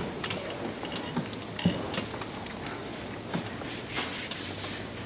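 Scattered small knocks, clicks and rustling from people moving about in an auditorium, the sharpest knock a little over one and a half seconds in, over a faint steady hum.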